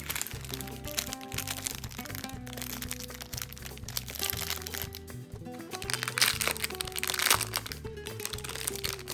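Packaging being crinkled and crackled by hand as a parcel is unwrapped, loudest about six to seven seconds in, over background music with a steady bass line.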